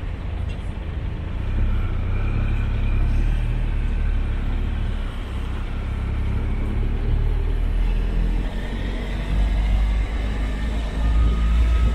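Motorcycle riding through town traffic, heard from the rider's seat: a steady engine note under a low rumble of wind and road noise, a little louder in the last few seconds.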